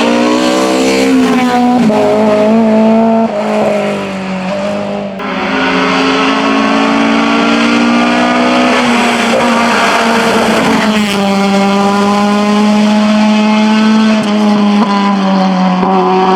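Hillclimb race car engine running hard under full throttle. Its pitch holds high and then steps abruptly several times, and there is a brief drop in loudness a few seconds in.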